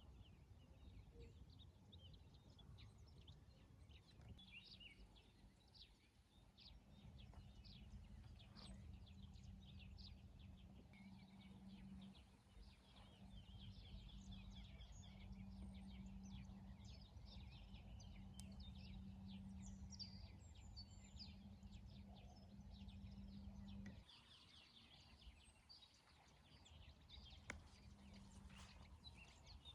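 Faint outdoor ambience of many small birds chirping and twittering, over a low steady rumble with a low hum that cuts off about 24 seconds in.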